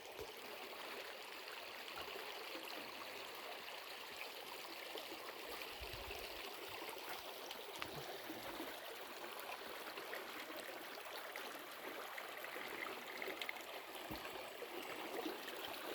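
Mountain stream rushing and gurgling steadily over rocks at a crossing point, a continuous even wash of water.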